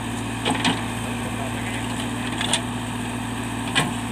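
JCB backhoe loader's diesel engine running steadily, with four sharp knocks or clanks over it, the loudest near the end.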